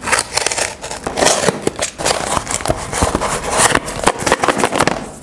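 Corrugated cardboard shipping box being opened by hand: a dense, irregular run of cardboard and paper clicks, scrapes and rustles as the flaps are worked open.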